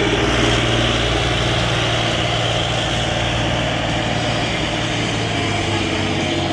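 Diesel engine of a standard-class pulling truck running hard under full load, working against a weight-transfer sled, with a loud, steady exhaust note that holds on without letting up.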